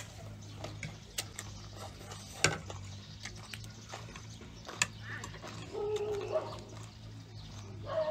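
Close-up eating sounds: chewing and mouth noises with scattered sharp clicks of chopsticks, over a steady low hum. A short animal call sounds in the background about six seconds in.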